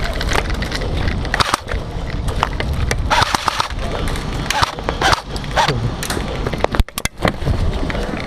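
Airsoft guns firing and BBs striking, heard as irregular sharp clicks and knocks over a steady low rumble, with faint distant shouts.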